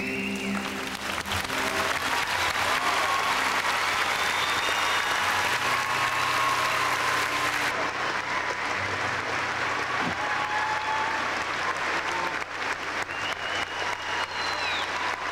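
Large audience applauding and cheering, with a few whistles, as the music ends in the first second.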